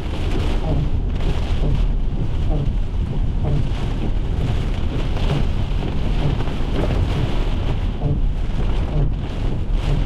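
Heavy rain beating on a moving car's windshield and body, heard from inside the cabin over a steady low rumble of road and wind noise while driving in a thunderstorm.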